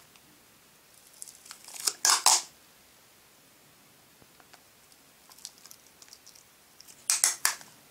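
Clear plastic sticky tape being peeled off its roll in short rasping pulls, a cluster about two seconds in and another near the end, with faint crinkling between them as the tape is wound around a thin perspex rod.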